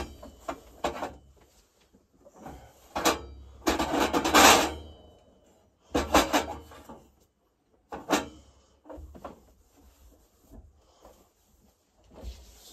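Someone moving about and handling things close to the microphone in a small camper cabin: a sharp click at the start, scattered knocks and clatters, and a longer scraping rustle about four seconds in.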